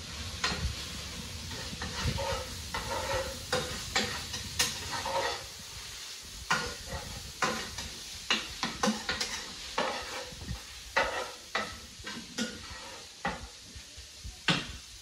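A utensil scraping and knocking against a pan as food is stirred on the stovetop, in irregular strokes one or two a second. Food sizzles in the pan underneath.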